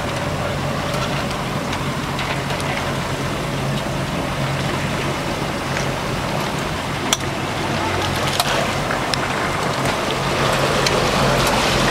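Motorboat engine running steadily, a low even hum under a haze of wind and water noise, with one sharp click about seven seconds in.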